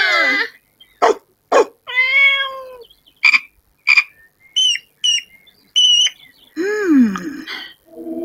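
A quick string of cartoon animal calls from a children's animated story: a meow-like call, short sharp calls, high squeaks, and near the end a call that falls in pitch, with a couple of clicks early in the sequence.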